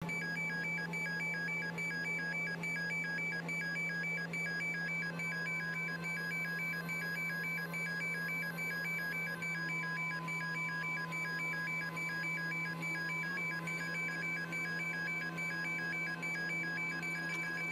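An electronic warning beeper pulsing rapidly and without a break over a steady low drone, as heard inside a crane operator's cab with the engine running.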